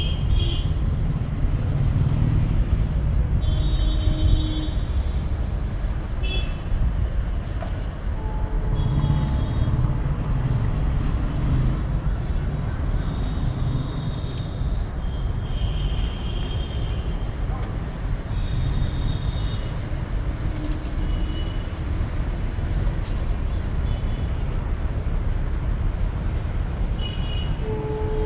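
Outdoor traffic noise: a steady low rumble, with brief vehicle horn honks every few seconds.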